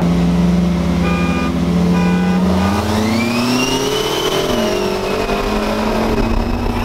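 Lifted Chevrolet Silverado's engine heard from inside the cab: it runs steadily at first, then from about two and a half seconds in it revs up hard under full acceleration, with a high whine rising over it. Two short high beeps sound near the start.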